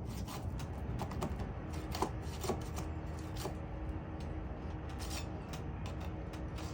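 Irregular light clicks and taps of hands and tools working asphalt roof shingles and nails, a couple slightly sharper about two seconds in, over a steady low rumble.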